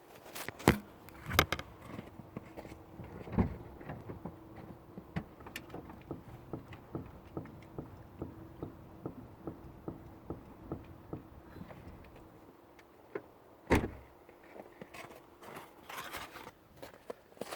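Knocking from a Mazda 6 GG's suspension: a run of short knocks and clicks, with several loud clunks in the first few seconds and another about four seconds before the end. This is the unexplained suspension knock the owner is trying to trace. A faint steady hum runs underneath.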